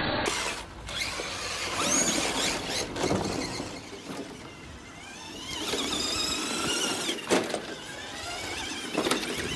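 Stock electric motors of Tamiya radio-controlled cars whining up and down in pitch as the cars accelerate and back off, over a rough scrabbling of tyres on dirt, with a few sharp knocks, the loudest about seven seconds in.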